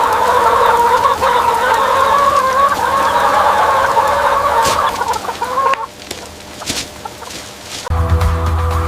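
Many hens clucking together in a dense chatter that cuts off about six seconds in. Music with a heavy beat comes in near the end.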